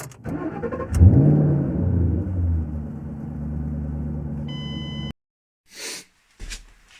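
BMW E36 engine being started: a click about a second in, then it catches with a brief rise in revs and settles into a steady idle. A short beep sounds just before the engine sound cuts off suddenly.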